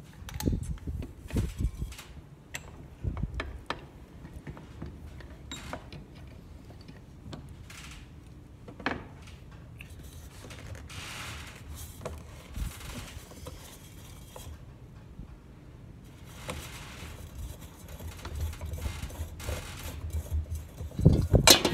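Metal knocks and scraping as the valve head of a steel fire extinguisher is worked in a cast-iron bench vise and the cylinder is twisted to unscrew it, with a cluster of the loudest knocks near the end.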